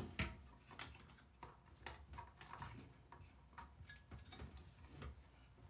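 Faint, irregular clicks and taps of hands handling parts and cables inside a PC case, about a dozen scattered over a few seconds.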